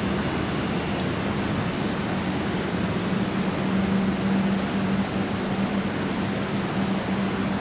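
Steady rushing of a stream flowing through a limestone cave tunnel into a pool. Under it runs a steady low hum that swells a little in the middle.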